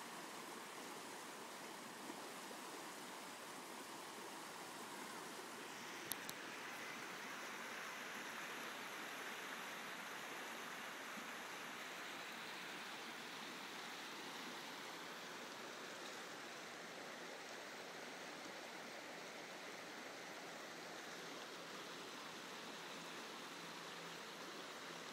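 Creek water flowing steadily in an even rushing hiss, with a single brief click about six seconds in.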